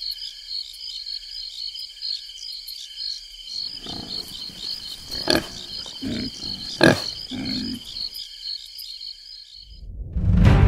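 Night insects trilling steadily with a short note repeating about once a second; from about four seconds in, a wild boar grunts several times, with two sharp cracks. Music starts near the end.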